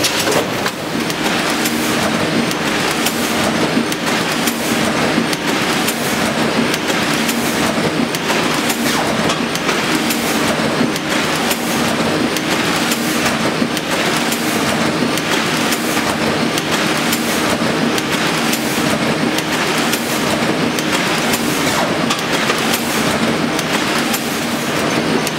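Sheet-fed offset printing press running at about 5,300 impressions an hour: a steady, dense mechanical clatter with a regular beat, over a low steady hum.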